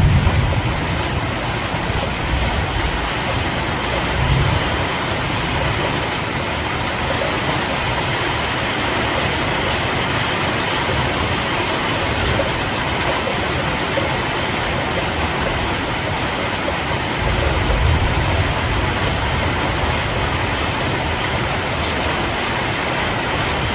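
Steady rain falling at night, an even hiss. A low rumble swells briefly about four seconds in and again for a couple of seconds near two-thirds of the way through.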